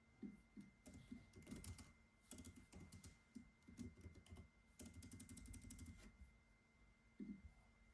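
Quiet typing on a computer keyboard in short quick bursts with brief pauses between them, and a single heavier key thump near the end. A faint steady whine sits beneath.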